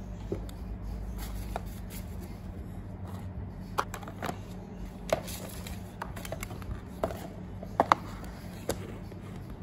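Light taps and clicks from handling a new tablet and its cardboard box packaging, scattered through the second half, with two quick clicks close together near eight seconds in, over a steady low hum.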